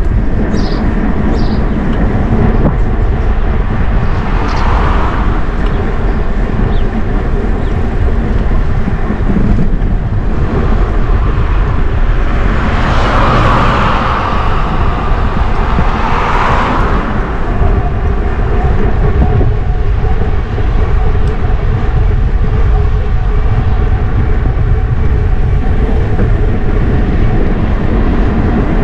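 Steady wind rumble on the microphone and road noise while riding a bicycle along a road. Around the middle, traffic swells and fades twice as vehicles pass.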